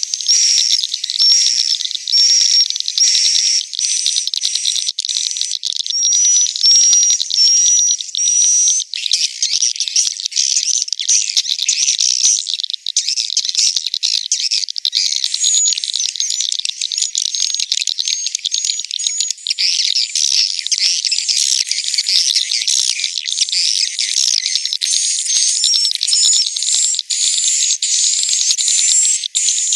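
Edible-nest swiftlets twittering and chirping in a dense chorus, the roosting call played to lure swiftlets into a swiftlet house. For the first several seconds a short high chirp repeats about twice a second over buzzing chatter. After that the calls overlap into a thicker, continuous twitter.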